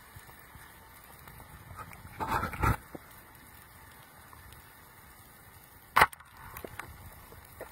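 A short burst of rushing noise about two seconds in, then a single sharp crack about six seconds in, the loudest sound, over a faint steady background hiss.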